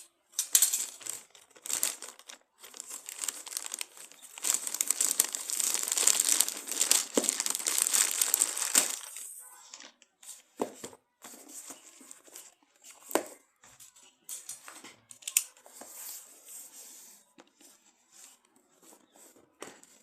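Plastic and paper packaging crinkling and tearing as a new smartphone is unboxed, a dense run of rustling through the first half, loudest around the middle. After that come scattered short clicks and rustles as the box and its contents are handled.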